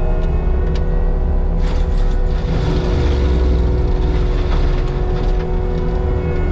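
Heavy diesel land-clearing machinery running steadily under work, with a steady whine over the engine.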